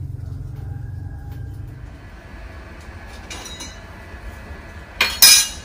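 Pot of soup boiling hard on a gas stove and steaming under its lid. A steady low rumble fades about two seconds in, and a sharp, loud burst of hissing clatter comes near the end.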